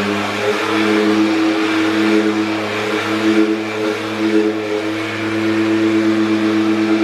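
Electric power sander running steadily at an even pitch, working on the wood of the toolbox.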